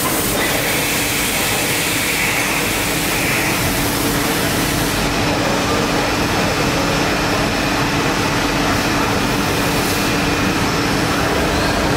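Steady running noise of a large five-axis gantry CNC milling machine, a constant low hum under an even rushing sound. A brighter hiss sits on top for the first three seconds or so.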